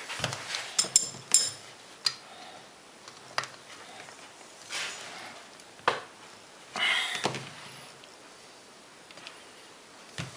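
Handling noise from an angle grinder and its parts. A quick run of sharp clicks with a short metallic ring about a second in is followed by single knocks and a couple of brief scraping rustles.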